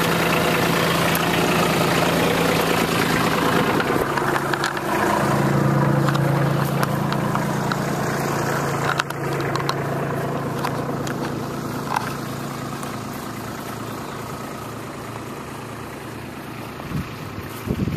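Kubota B2601 compact tractor's three-cylinder diesel engine running steadily at idle. It settles to a slightly lower speed about five seconds in, then grows steadily fainter, with a few faint clicks along the way.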